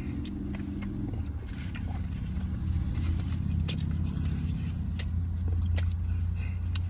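Car engine idling, heard inside the cabin as a steady low hum, with a few faint clicks and scrapes as a plastic straw is handled.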